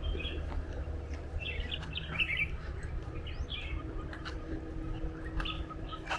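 Small birds chirping in several short bunches of quick high notes, the busiest about two seconds in, over a steady low rumble.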